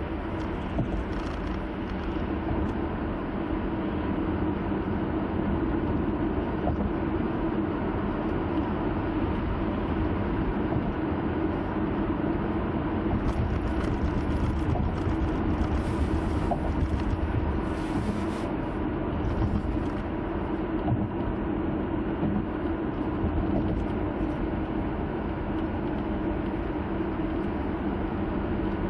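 Steady in-cabin sound of a car cruising on an expressway: road and tyre noise with a constant low engine hum.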